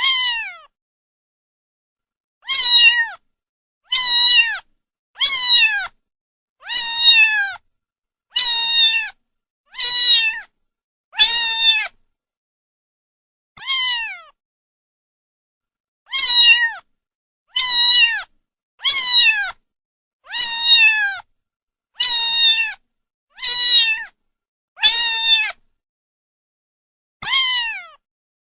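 A domestic cat meowing over and over: about seventeen separate meows, each under a second long and dropping in pitch at the end, with complete silence between them and a longer pause about halfway through.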